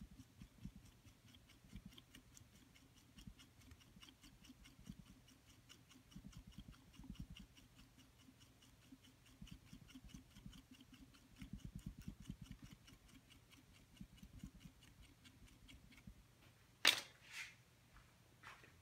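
Faint, quick scraping strokes of a small hand tool smoothing the clay coils at the neck of a coil-built pot, about five light ticks a second, stopping shortly before the end. Two sharp knocks come near the end.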